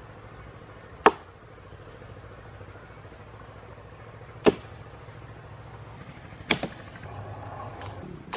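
Insects, crickets or cicadas, droning steadily in high thin tones, broken by three sharp knocks a couple of seconds apart, the last one doubled.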